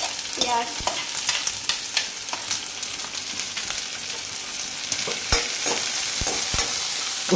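Sliced onions sizzling in hot oil in a kadai, with a metal spatula scraping and clicking against the pan as they are stirred. A few sharper knocks of the spatula on the pan come near the end.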